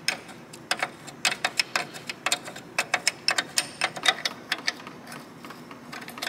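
Ratchet wrench clicking in quick, irregular runs while a brake pipe fitting is unscrewed from a rusted front brake caliper.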